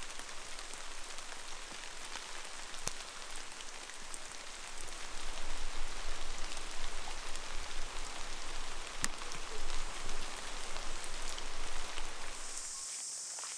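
Steady rain pattering, with scattered single drops standing out. It grows louder about five seconds in. Near the end it gives way to a steady high-pitched hiss.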